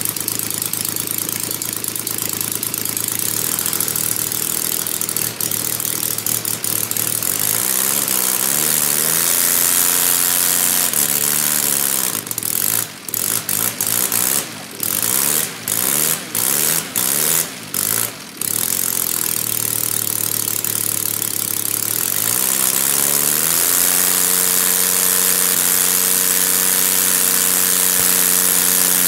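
Kolm 150cc inline three-cylinder engine of a large-scale RC P-51 Mustang running on the ground and turning a four-blade propeller. It runs low, rises in pitch as it is throttled up, breaks up in several short drop-outs midway, then climbs again to a steady high-rpm run near the end.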